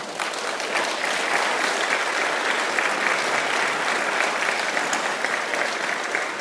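Audience applauding: a dense, steady spread of many handclaps that eases off slightly near the end.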